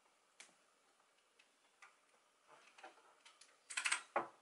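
Computer keyboard keys pressed to get into the BIOS setup during boot: faint, irregular single clicks, then a quicker run of key clicks and a louder clatter of several keys near the end.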